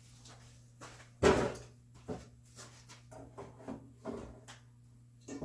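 Tools and boards handled on a workbench: one sharp knock about a second in as something is set down on the bench, then several light taps and clicks.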